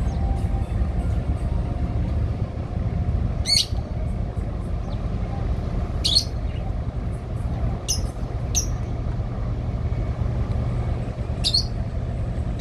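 Steady low rumble of the car carrier's and tugboat's diesel engines working, with a small bird giving five short, sharp chirps.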